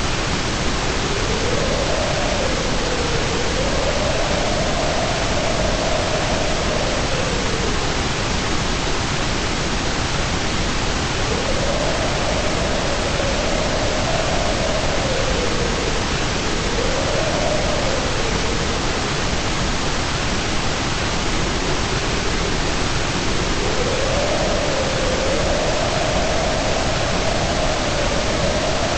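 Steady white noise hiss, even and unbroken. A faint wavering tone in the middle range drifts up and down in pitch and comes and goes several times.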